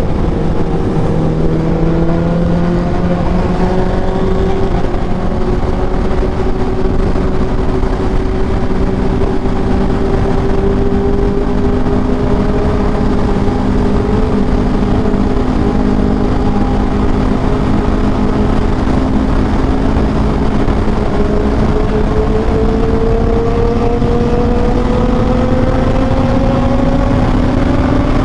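Honda CBR1000RR SP's inline-four engine running steadily under way, its note climbing gradually over the last several seconds, with heavy wind rush on the microphone.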